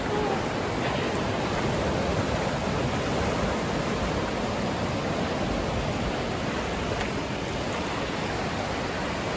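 Small surf waves breaking and washing up on a sandy beach: a steady, even rushing.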